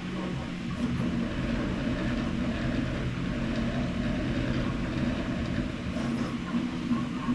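Three 3D printers running the same print job together: stepper motors whirring in a steady mechanical hum whose low tones step up and down in pitch as the print heads move.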